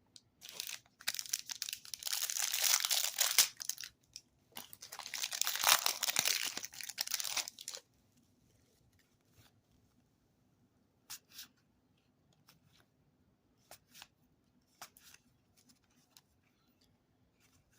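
A trading card pack wrapper being torn open and crinkled in two long crackling stretches over the first half, then a few faint ticks and taps from handling cards.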